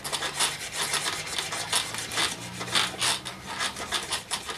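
Rattan bow stave being burnished with the smooth shaft of a deer tibia bone: firm rubbing strokes back and forth, about two a second. The hard pressure crushes the wood fibres flat to smooth the surface.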